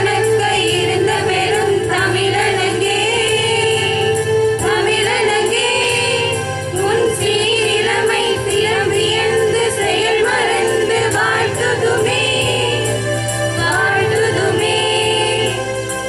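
A group of women singing a song together into microphones through a public address system, over a steady low drone.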